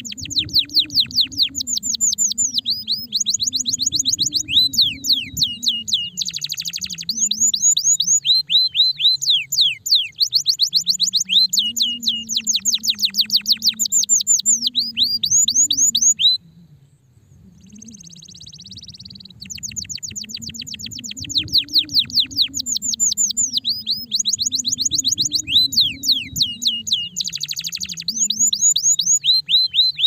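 Domestic canary singing: long runs of rapid trills made of quick, downward-sweeping whistled notes, broken by a pause of about three seconds a little past the middle before the song starts again.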